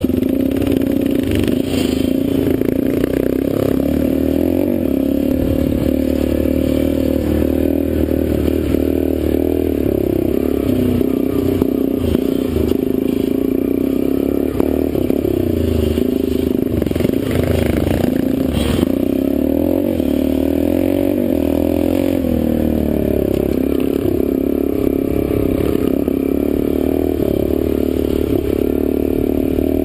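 Dirt bike engine running continuously as it rides along a trail, heard up close from the bike itself, with the engine note shifting as the throttle is worked.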